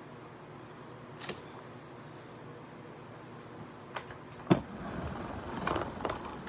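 Faint steady room hum with a small click about a second in. Then a sharp knock about four and a half seconds in, the loudest sound, followed by rustling and bumping as the phone that is recording is picked up and moved.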